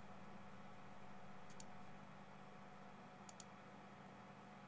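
Faint computer mouse clicks: three quick double clicks about a second and a half to two seconds apart, over a faint steady hum.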